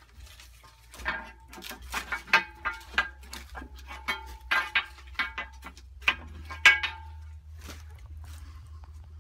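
An irregular series of sharp metal clanks, each with a short ringing tone, as a steel bar knocks against the cast-iron flywheel and frame of an Imperial Super Diesel single-cylinder hit-and-miss engine that is being turned over by hand; the engine is not running.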